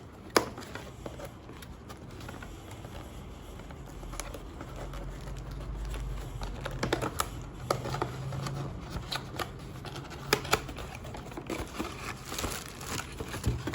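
Unboxing an air-assist kit: irregular clicks and taps of cardboard packaging and parts being handled, with some crinkling of packaging. A low hum sounds through the middle.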